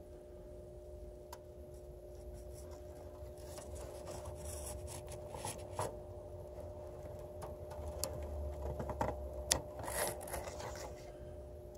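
Faint rubbing and scratching with scattered light clicks over a steady hum. The handling sounds grow busier and a little louder in the second half.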